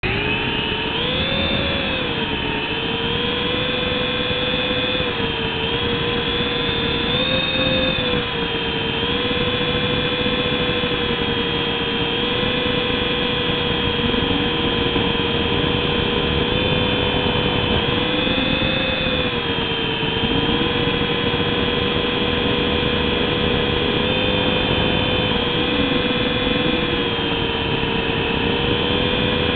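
Small RC helicopter's motor and rotors whining steadily at close range. The pitch rises about a second in as it spools up to lift off, then wavers slightly with throttle changes during the hover.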